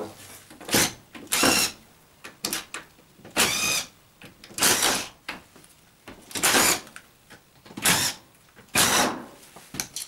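Screws being turned out of a dishwasher's plastic front legs with a hand screwdriver: a series of short squeaking, grating strokes, roughly one a second.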